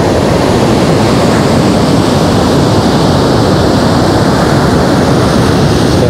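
Large ocean waves breaking and surging up a sandy beach: a loud, steady rush of surf.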